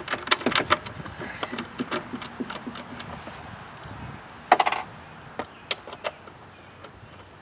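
Ratcheting socket driver clicking in quick runs as a 3/8 bolt under a lawn mower deck is turned out, with one louder metallic clatter about four and a half seconds in.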